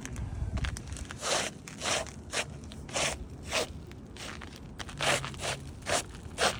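Gritty crunching scuffs on asphalt roof shingles, about nine short strokes at uneven spacing.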